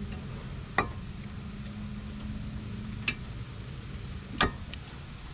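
Three sharp metallic clicks, about a second in, at three seconds and near the end, as brake pads are pressed into the greased clips of the front caliper bracket, over a steady low hum.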